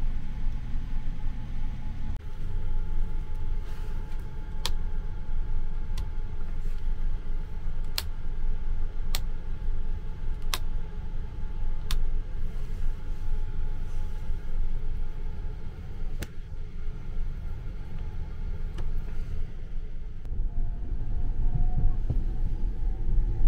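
Steady low rumble and hum of the Sunrise Express sleeper car (285 series) heard inside a small compartment. Over it come sharp clicks about every second or two, from about five to sixteen seconds in: the compartment's room-light and night-light push buttons being pressed.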